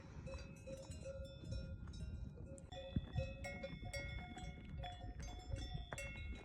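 Several livestock bells clanking irregularly, each ringing at its own pitch.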